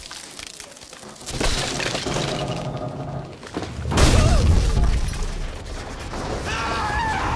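Cartoon sound effects of a wooden tower breaking apart: a rush of breaking and cracking noise starts just over a second in, then a heavy crash with a deep boom about four seconds in as the roof comes down. A rumbling, rolling noise follows, with a wavering pitched sound near the end.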